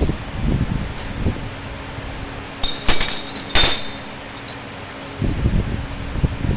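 Small metal parts clinking together twice, about a second apart, each with a short high ringing tone, among duller knocks and handling noise.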